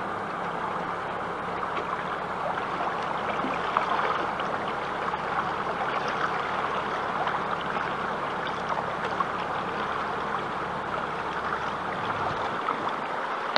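Water rushing and splashing along the hull of a small boat under way, over a steady low motor hum that drops away near the end.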